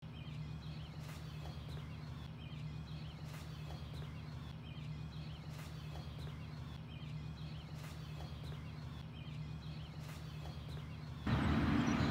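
A bird repeats a short call over and over, about once a second, over a steady low rumble. Near the end the background noise suddenly gets louder.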